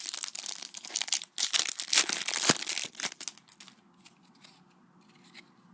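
Foil trading-card pack being torn open, the wrapper crinkling and crackling as cards are handled. The rustling dies down about three seconds in.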